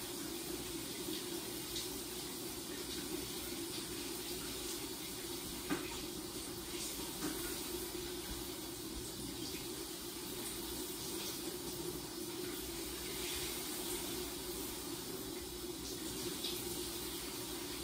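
Shower running, a steady spray of water behind a glass shower door, with a few faint small knocks now and then.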